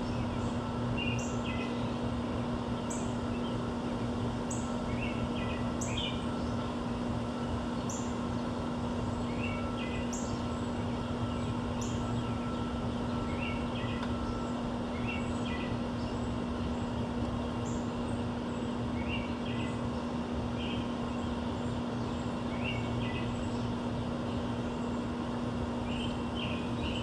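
Small birds chirping in short calls every second or two, with sharp high chip notes, over a steady low hum of urban background noise.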